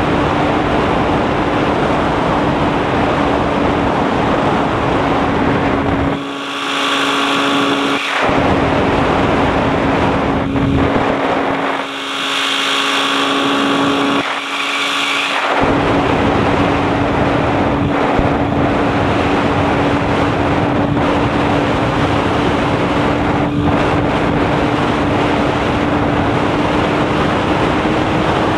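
A light aircraft's engine and propeller drone steadily in flight, with a rush of wind noise. Twice, for a couple of seconds each, the low rumble drops away and a clearer ringing tone comes through. The engine's pitch rises slightly near the end.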